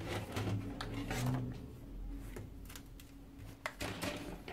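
Glossy magazine pages rustling as the magazine is handled, flipped open and laid flat, with a few light clicks and taps, over a steady low hum.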